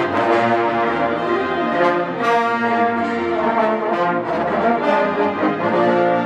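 Large wind band with massed brass (trombones, sousaphones, mellophones) and saxophones playing full sustained chords, the notes moving every second or so.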